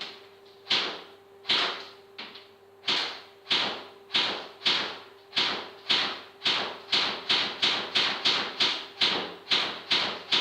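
Airsoft gun firing a long string of single shots, each a sharp crack with a short ringing tail. The pace picks up from about one and a half shots a second to about three.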